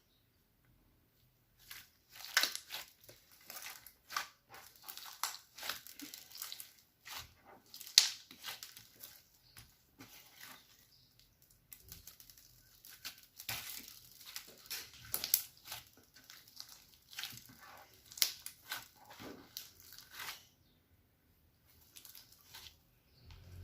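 Slime being squeezed and stretched by hand, giving an irregular run of sharp clicking and crackling pops that stops briefly near the end.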